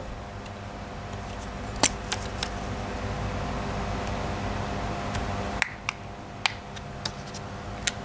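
Small screwdriver working the screws of a plastic handheld RF remote control's cover, with a few light clicks of plastic and metal as the casing is taken apart: a cluster about two seconds in and several more in the last few seconds.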